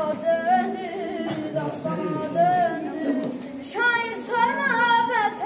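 A child singing a song over a musical backing track, holding long notes that waver in pitch; about three and a half seconds in the voice gets louder and higher.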